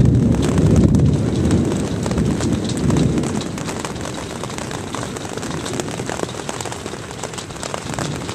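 Hail pelting a camper's roof and walls, a dense clatter of countless impacts over a low rumble. The rumble eases after about three seconds and the hail slowly grows quieter.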